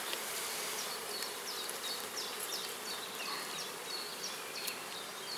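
Honeybees buzzing steadily around an opened hive during a frame inspection, with a series of short high chirps sounding over the hum.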